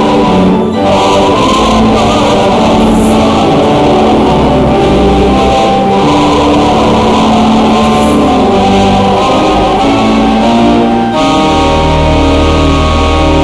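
Church congregation singing a hymn with instrumental accompaniment, sustained notes moving from chord to chord every second or two.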